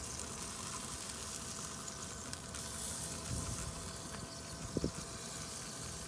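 Ribs sizzling on the hot grates of an open Asmoke portable pellet smoker after a spritz of apple juice. A steady hiss runs over a faint steady hum, with a quick double tap a little before five seconds in.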